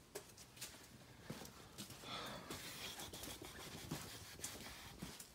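Faint footsteps and handling rustle from a camera phone being carried, with scattered light clicks.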